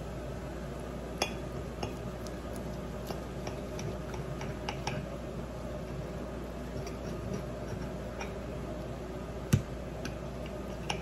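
Knife and fork clicking and scraping against a plate as a grilled steak is cut, with occasional sharper clinks, the loudest about nine and a half seconds in.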